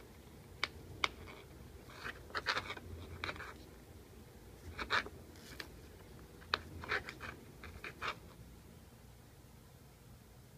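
A kitten's claws and paws scratching and clicking on a wooden floor and against cables as it plays, in scattered short bursts that stop about eight seconds in.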